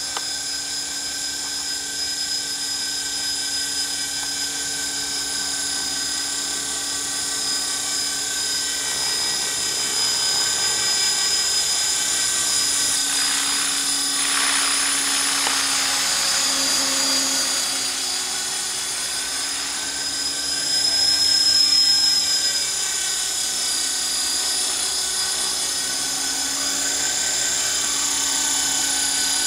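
450-size electric RC helicopter hovering: a steady high-pitched motor whine over the rotor buzz, shifting in pitch and loudness as it is manoeuvred, with a brief swell about three-quarters of the way through.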